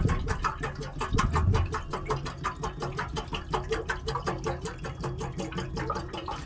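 Water glugging out of a plastic bottle as it is poured into a stainless steel kettle, a quick, even run of gulps that stops near the end.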